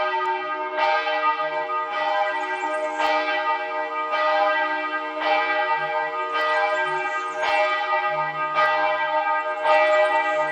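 Church bells ringing, a new strike about once a second, each ringing on into the next.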